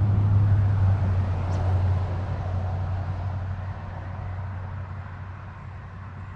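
A road vehicle passing by: a low hum and tyre noise, loudest in the first couple of seconds, then fading away.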